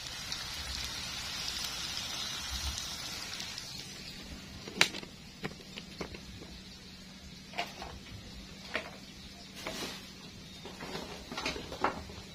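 Vegetables and chillies frying in oil in a wok, sizzling with a steady hiss that fades out after about four seconds. After that come scattered sharp clicks and knocks with light rustling.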